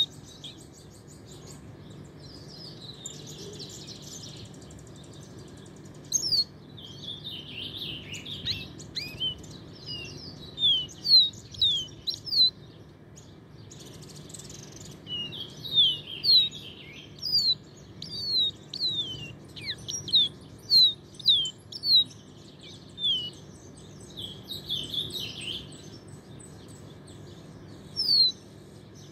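Caged pet songbird called a 'paraguayito' singing: rapid high chirps, each sliding downward, strung into bursts of song, with softer scratchy twittering during the first few seconds. A steady low background hum runs underneath.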